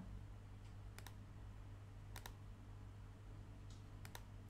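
A few faint, sharp computer mouse clicks, some in quick pairs, from colouring in a paint program, over a low steady electrical hum.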